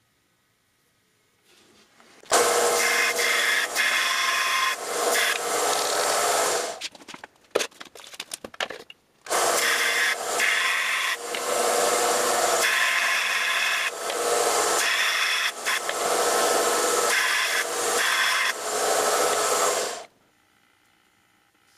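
Central Machinery bench belt sander grinding a small brass fitting held against the moving belt, rounding off its hex corners. The grinding runs in two long stretches, about five and then about ten seconds, with a short break of light clicks between them, and the sound swells and dips as the piece is pressed and eased off.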